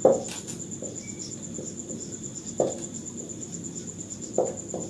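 A cricket trilling steadily, a high, evenly pulsed tone, with a few soft knocks: one at the start, one in the middle and two close together near the end.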